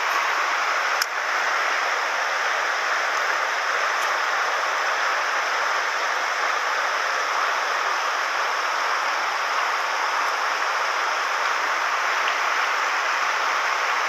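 Shallow mountain stream rushing over a stony riffle: a steady hiss of running water. There is a faint click about a second in.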